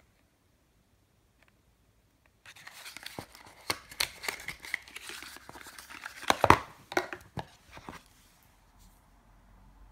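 Tissue paper rustling and crinkling as small cosmetic cartons are handled inside a cardboard box, starting about two and a half seconds in, with a few sharp knocks of packaging, the loudest about six and a half seconds in.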